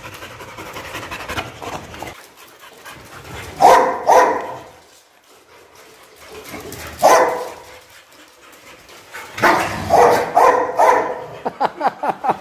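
Dog barking: a couple of barks, then a single one, then a faster cluster, ending in a quick string of short barks.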